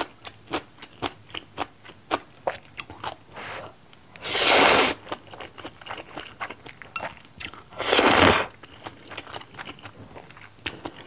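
Close-up eating of black-bean-sauce ramen noodles: a quick run of wet chewing clicks, then two loud slurps of noodles about four and eight seconds in, each followed by more chewing.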